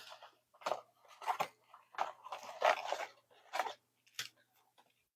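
Trading-card packs and cards being handled: short irregular crinkles and rustles of foil pack wrappers and card stock, about six separate bursts.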